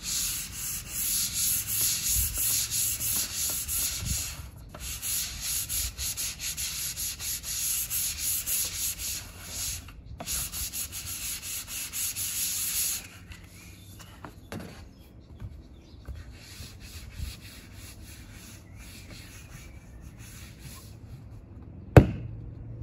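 Hand sanding a cut board: sandpaper rubbing across the surface in quick rhythmic back-and-forth strokes, roughening it so glue will grip. The sanding stops about halfway through, leaving faint handling noise, and a single sharp knock comes near the end.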